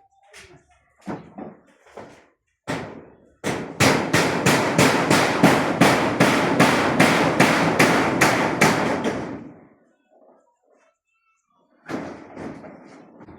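A fast run of loud, evenly spaced knocks, about three a second, starting a few seconds in and stopping abruptly after about six seconds, with a few short scattered knocks before it.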